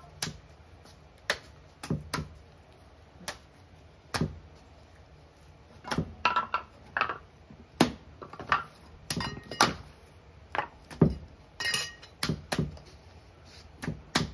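Wet potter's clay being kneaded by hand on a stone slab, with lumps slapped down onto the heap: irregular slaps and thuds, sparse at first and coming faster after about six seconds.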